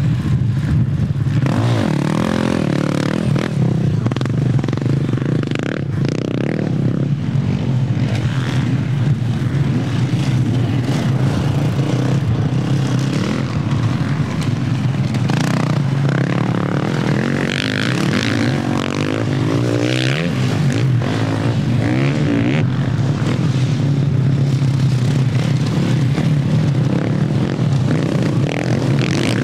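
Off-road race engines, quad bikes and enduro motorcycles, running continuously with a steady drone, their revs rising and falling now and then as machines go by.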